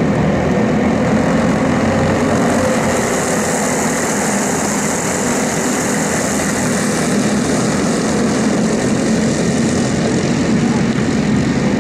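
Go-kart engines running at racing speed: a steady, unbroken engine buzz.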